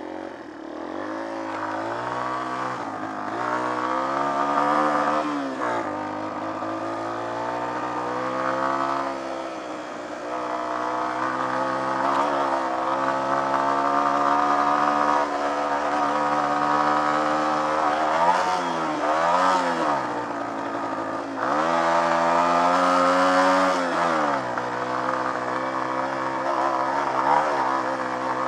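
Off-road trail motorcycle engine being ridden, revs rising and falling again and again, with sharp drops in pitch as the throttle is shut or gears are changed, several times over.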